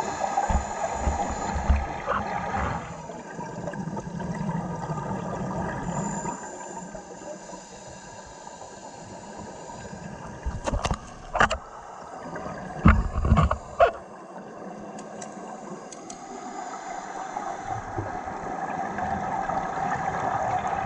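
Underwater sound of scuba divers breathing through their regulators: a steady gurgling rush of exhaled bubbles, louder near the start and again near the end. A few sharp clicks or knocks come in the middle.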